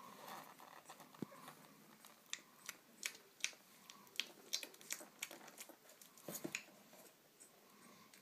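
Bracco Italiano puppy suckling at its mother's teat: faint, irregular wet smacks and clicks of its mouth, coming thickest in the middle of the stretch.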